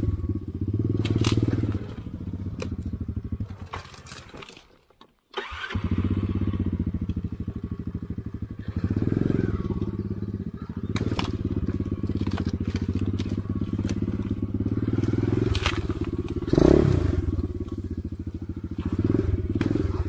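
Enduro motorcycle engine running at low, varying revs, with scattered knocks and cracks over it. The sound cuts out for about half a second about five seconds in, then the engine note comes back.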